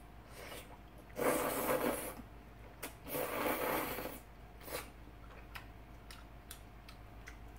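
A person slurping thick udon noodles: two long slurps about a second apart, a short one after, then faint small clicks.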